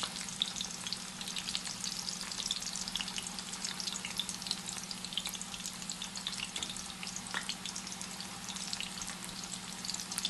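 Battered cauliflower florets deep-frying in hot oil: a steady sizzle with dense crackling pops. A steady low hum runs underneath.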